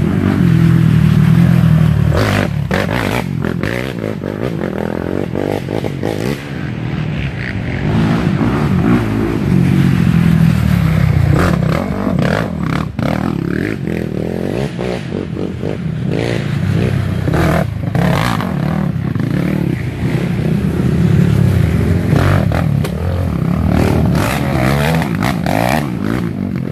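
Racing ATV engines revving and labouring through a muddy creek crossing, the engine note rising and falling as quads come through one after another, swelling loud several times, with scattered knocks.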